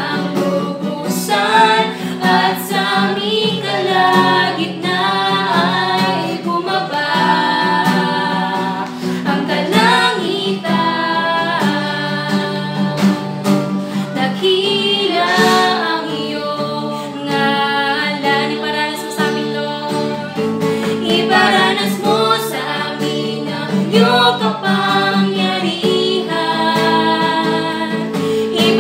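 Tagalog worship song sung by a woman leading, with a female and a male backing singer, over acoustic guitar.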